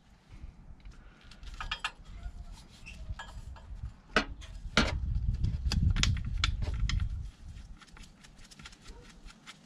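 Light metallic clicks and taps as the SMG gearbox pump strainer, fitted with a new aluminium crush washer, is threaded back into the gearbox casing by hand. A low rumble sounds between about five and seven seconds in.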